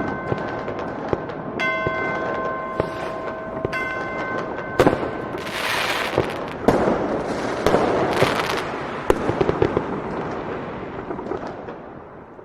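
Fireworks going off: dense crackling with many sharp bangs and louder bursts about six and eight seconds in, fading out near the end. A bell-like ringing tone sounds twice in the first few seconds.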